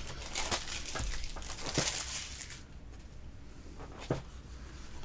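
Plastic shrink wrap crinkling and tearing as a knife cuts open a cardboard card box. The rustling stops about halfway through, leaving quieter handling and a single knock near the end.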